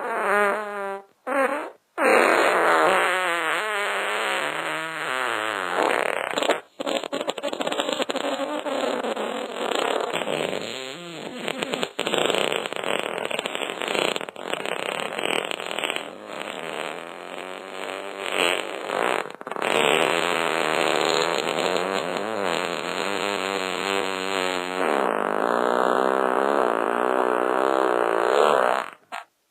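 Fart sounds: a few short farts, then long, wavering, pitched farts that run almost without a break until they stop suddenly near the end.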